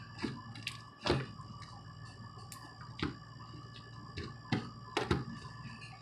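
Scattered knocks and clicks from slime containers being handled: plastic tubs and lids picked up and set down. The loudest knock comes about a second in.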